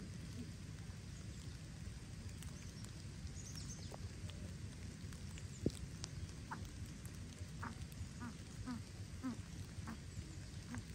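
A coucal calling a run of short, deep hooting notes, about two a second, starting about six and a half seconds in, over steady rain. A single sharp tap comes just before the calls begin.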